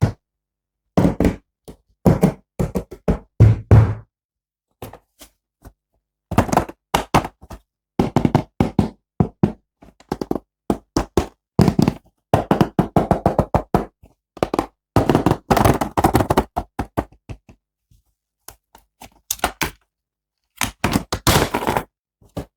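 Rapid clusters of knocks, taps and clicks from toy figures and their packaging being handled, in several bursts with full silence between them.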